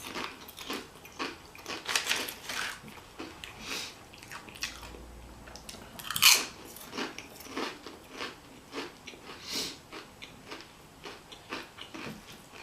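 Close-miked chewing and biting of Chipotle food, with irregular wet mouth clicks and smacks. One louder bite about halfway through.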